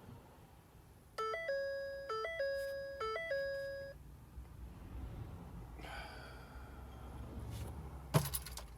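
Truck dashboard warning chime sounding three times in quick succession, each chime a short step up in pitch and then a held tone. A single sharp click follows near the end.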